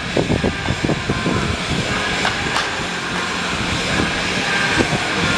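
Batting-practice ambience at a ballpark: a steady wash of background noise, with a few sharp cracks of bat on ball, two of them close together about two and a half seconds in.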